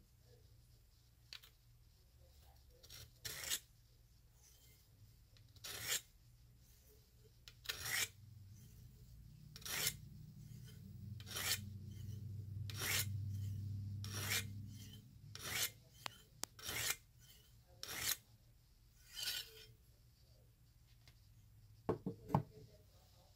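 A Lansky rod-guided sharpening hone being drawn along a clamped knife blade's edge: a dozen or so separate rasping scrapes, one every second or two.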